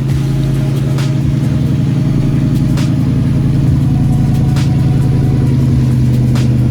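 Off-road vehicle's engine running at steady revs, with a constant pitch throughout.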